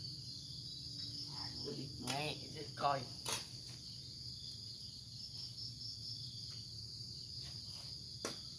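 Steady high insect chorus running throughout. A few short scrapes and knocks of a small hand hoe chopping into soil and leaf litter stand out a couple of seconds in, with another near the end.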